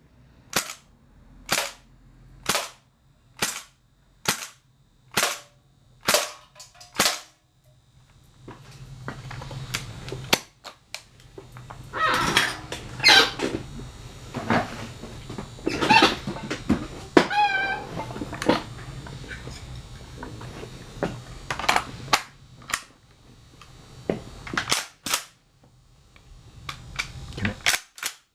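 Shoei G43 air blowback BB rifle firing a steady string of about ten sharp shots, a little under a second apart, in the first seven seconds. A stretch of irregular clatter over a low hum follows, then several more shots near the end.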